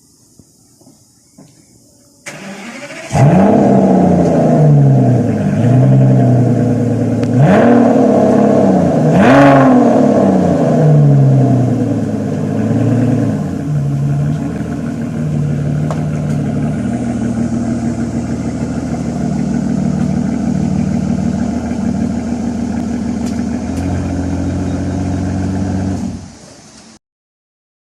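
McLaren sports car engine cranked and started about two seconds in, then blipped hard three times, each rev rising quickly and falling back. It settles into a steady idle, which cuts off near the end.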